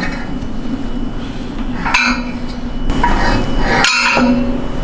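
Metal weight plates and a collar clinking and knocking on the sleeve of a strongman log as the load is changed, with two sharper clanks about two seconds in and near four seconds.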